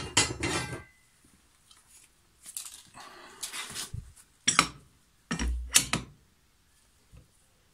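Steel lawn mower blade being handled and set onto a cone blade balancer: several separate metal clanks, rattles and knocks, the loudest a thud and sharp click a little over five seconds in as the blade seats on the cone.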